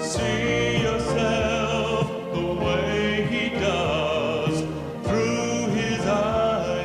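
A Christian song: a singer holds long notes with heavy vibrato over instrumental accompaniment.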